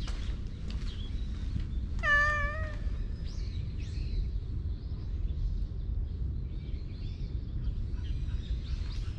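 A cat meows once, a short meow of under a second about two seconds in, over a steady low background rumble.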